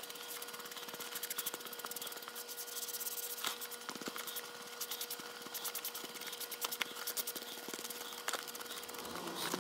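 Hands rubbing over the leather of a Wilson A2K baseball glove in quick, short scrubbing strokes, with a couple of light knocks about three and four seconds in.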